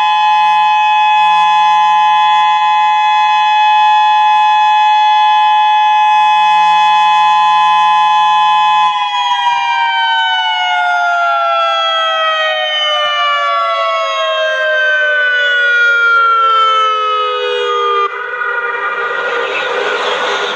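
Federal Signal Modulator outdoor warning siren sounding a loud, steady multi-tone chord, then, about nine seconds in, winding down with all its tones sinking slowly together. In the last couple of seconds the sound turns rough and hissy as the pitch keeps falling.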